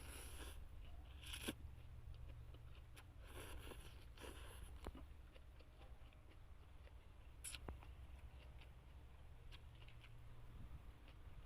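Faint crunching and clicking of someone chewing raw vegetables, in a few short bursts over a low steady hum.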